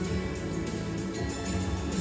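Music with sustained held notes.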